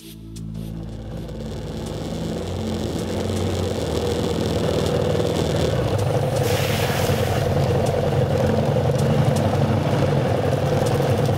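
Off-road motorcycle engine running steadily under way, growing louder over the first few seconds.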